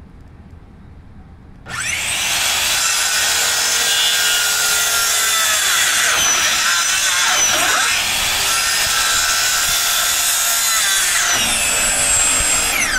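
Corded circular saw starting up about two seconds in and cutting through a thick wooden beam, blade and motor running steadily under load. Near the end the saw comes out of the cut and its whine winds down.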